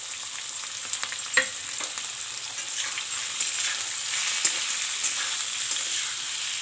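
Raw prawns sizzling as they fry in hot mustard oil in an iron kadai: a steady hiss, with sharp clicks and scrapes from a metal spatula stirring them against the pan.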